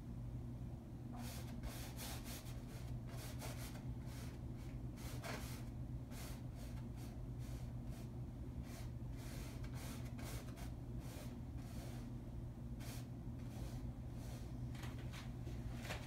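Paintbrush strokes on canvas: short, irregular scratchy swishes of the bristles dragging paint across the canvas. A steady low hum runs underneath.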